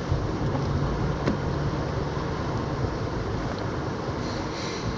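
Steady in-cabin driving noise: the low rumble of a car's engine and tyres on the road, with a single sharp click a little over a second in.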